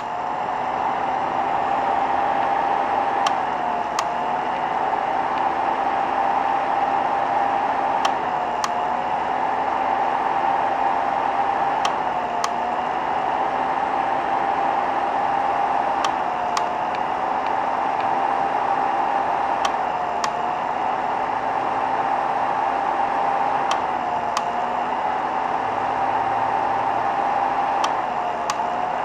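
Clicking from a 3D printer's heat bed circuitry: sharp clicks in pairs about half a second apart, repeating about every four seconds. They sit over a steady fan whine and hum, which dips briefly in pitch with each pair of clicks.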